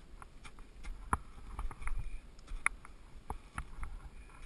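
A string of irregular sharp knocks and clicks from a climber scrambling up rock in ski boots, with boots, gloves and gear striking the rock. The strongest knocks come a little over a second in and near the middle.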